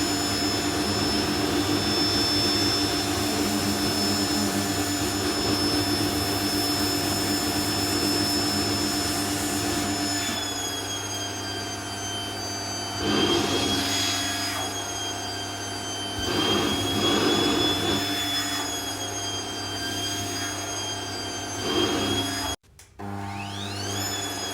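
Vacuum cleaner running with a steady motor whine and rushing air, surging louder three times as it works. Near the end it cuts out for half a second, then the motor whines back up to speed.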